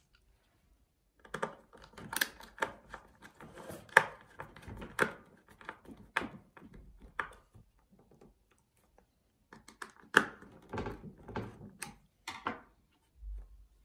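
Small plastic clicks and knocks as AA-size cells and their retaining strap are handled in a TDK A73 boombox's battery compartment. The clicks come in a dense run, stop for about two seconds, then start again, with one low thump near the end.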